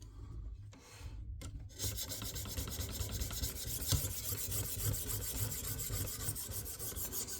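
600-grit stone of a KME guided sharpening system stroked quickly back and forth along a thin steel fillet-knife blade: a steady scratchy scraping that starts about two seconds in.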